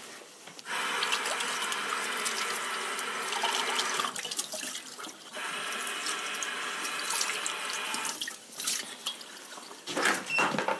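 Water running from a tap into a sink in two spells of about three seconds each, with a short break between. A few light knocks follow near the end.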